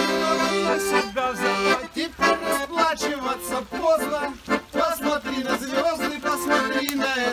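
Piano accordion playing a tune.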